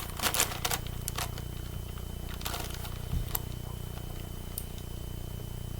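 Plastic 9x9 Rubik's cube being turned by hand: quick clicking, scraping layer turns in the first second and again around two and a half to three and a half seconds in, over a steady low hum.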